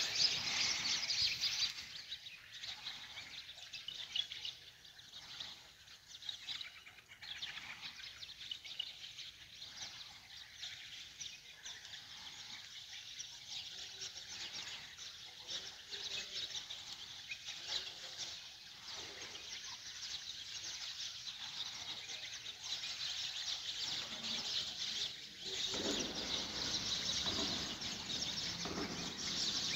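Birds chirping and calling over a steady high hiss of outdoor ambience; in the last few seconds a lower rushing noise joins in and the sound grows louder.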